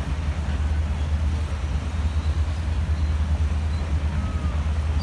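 Passenger train cars rolling past with a steady low rumble, over the continuous rush of river rapids.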